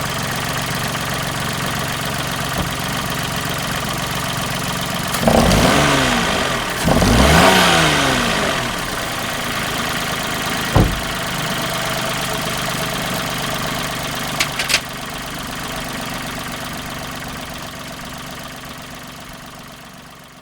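Daihatsu Tanto Custom's 660 cc three-cylinder turbo engine idling steadily, revved up briefly twice, about five and seven seconds in, each time falling back to idle. A sharp click follows a few seconds later and two short clicks after that, then the sound fades out.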